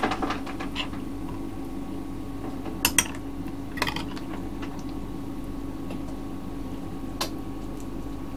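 A few sharp clinks and taps of kitchen utensils against a dish, spaced a second or more apart, over a steady low hum.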